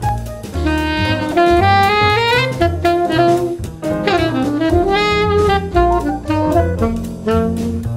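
Saxophone playing a jazz melody with slurred notes and pitch scoops, one long bend down and back up about halfway through, over a backing track of drums and bass.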